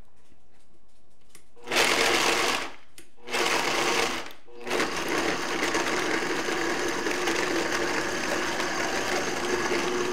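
Countertop blender grinding pork rinds into crumbs. It is pulsed twice, about a second each time, then runs steadily.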